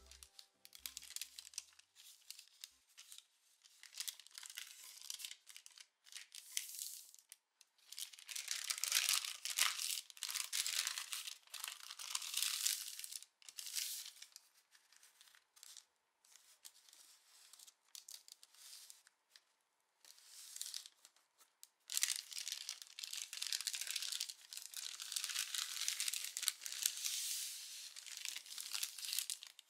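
A sheet of calligraphy paper rustling and crinkling as it is handled, folded and creased flat by hand. It comes in irregular stretches, loudest for several seconds about a third of the way in and again through the last third.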